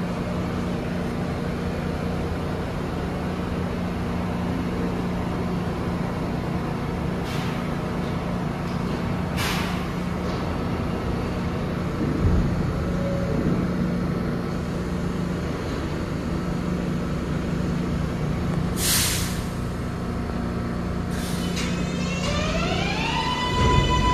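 New York City subway train at the platform: a steady electrical hum with four short hisses of air-brake air released. Near the end comes a rising electric whine from a train's propulsion, climbing in several pitches at once and then holding steady.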